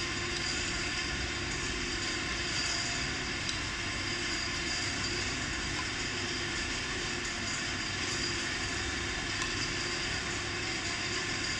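Steady background hum and hiss, even in level throughout, with a faint high steady tone over it.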